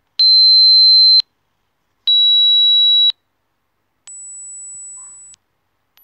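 Dog whistle app on an Android phone playing electronic whistle tones: three steady beeps about a second long each, the first two loud and close in pitch, the third higher and quieter.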